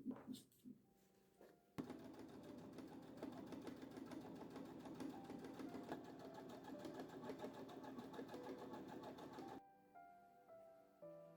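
Sewing machine stitching in one steady, fast run of about eight seconds, starting abruptly after a few light knocks and stopping suddenly near the end. Soft instrumental music plays underneath and carries on after it.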